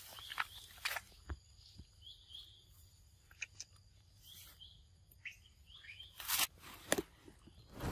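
Short high chirping calls, coming in quick pairs several times, over a low outdoor background, with a few brief rustles and knocks.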